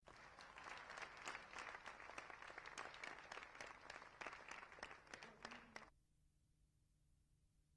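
Faint audience applause, many hands clapping, cutting off abruptly about six seconds in, followed by near silence.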